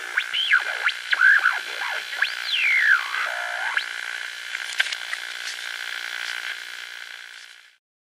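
Electronic synthesizer music with quick swooping pitch glides up and down over a steady held tone, fading out near the end.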